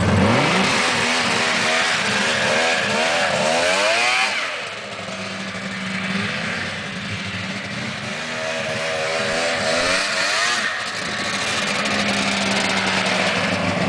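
Snowmobile engine revving with rising and falling pitch as the sled pulls away, dropping in level as it runs off across the snow, then growing louder again as a snowmobile rides back close.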